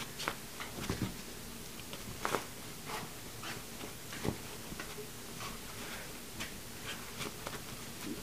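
A puppy and a cat play-fighting on a fabric couch: scattered quick scuffles and soft thumps of paws and bodies on the cushions, with short sharp clicks, and no barking or hissing.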